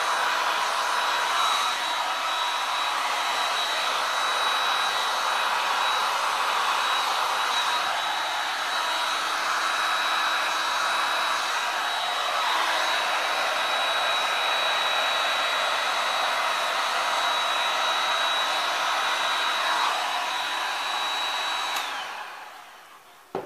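Electric heat gun blowing steadily with a thin high whine over the noise of its fan, switched off near the end as the whine drops and the blowing dies away.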